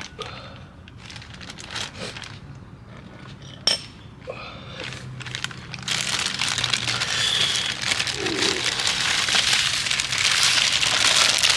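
Plastic bag crinkling and rustling as it is handled, loud and continuous from about six seconds in, after a few scattered clicks and one sharp clink.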